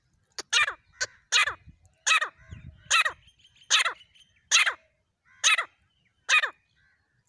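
Grey francolin calling: a series of about ten loud, harsh notes, each sweeping steeply down in pitch, repeated roughly every three-quarters of a second.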